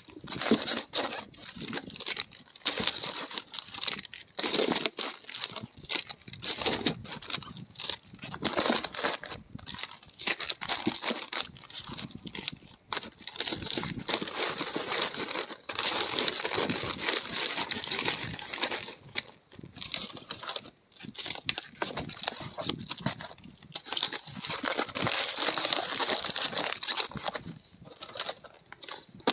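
Packaging crinkling and rustling as it is handled, in irregular bursts that come and go.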